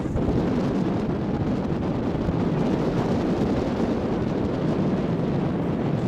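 Steady wind rumble on the microphone aboard a moving ferry, mixed with the ferry's running noise as it moves through the water.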